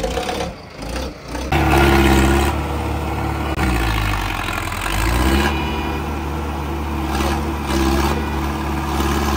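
An engine working hard under load to pull a vehicle stuck in mud. It comes in loud about a second and a half in, its pitch sags and then climbs back about four seconds in, and it runs on steadily after that.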